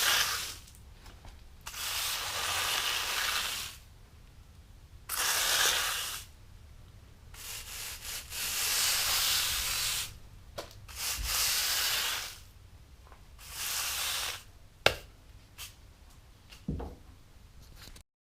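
Repeated hand-worked abrasive rubbing strokes, about six of them, each a second or two long with short pauses between, followed by a few sharp clicks near the end.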